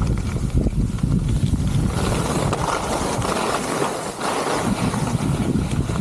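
Wind buffeting the microphone of a skier's pole-held camera during a fast descent, with the hiss and scrape of skis running over packed snow. From about two seconds in to about five the low wind rumble eases and the scraping hiss of the skis comes forward as the skier carves a turn.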